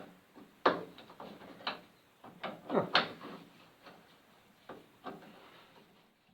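A run of sharp clicks and knocks, the loudest about a second in and near the middle, from undoing the screws of an Austin A30/A35 door hinge and handling the loose hinge parts and tools.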